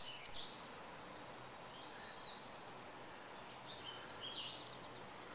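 Faint songbirds singing: short, high chirping phrases coming every second or two over quiet background noise.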